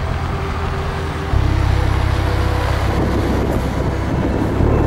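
Background music: a deep, sustained bass drone with steady tones above it, shifting to new notes about a second in and again near the end.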